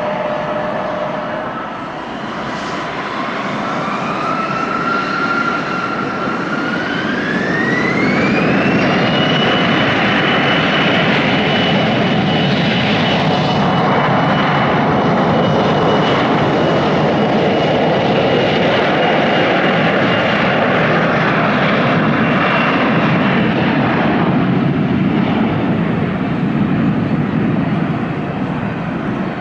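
Regional jet's turbofan engines spooling up to takeoff thrust: a whine rises in pitch a few seconds in, then holds steady over a loud jet roar as the aircraft rolls and climbs out. The roar eases off near the end.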